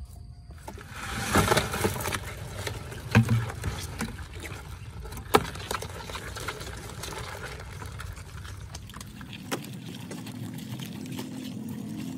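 Live crabs moving in shallow water in a plastic basin: splashing, with a few sharp knocks of shells and claws against the plastic, the loudest in the first half.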